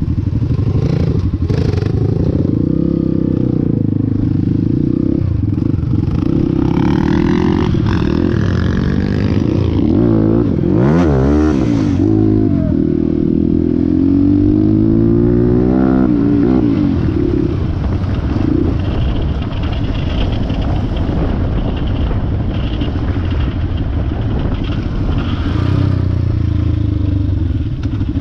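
Motorcycle engine running under way, its pitch rising and falling with the throttle. There is a marked rev-like sweep about ten to twelve seconds in.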